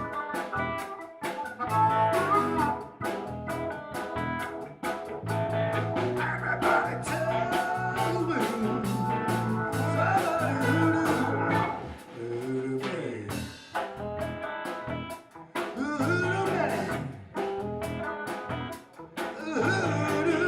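Blues band playing an instrumental stretch of a slow blues: a lead line with bent notes over bass and a steady drum beat.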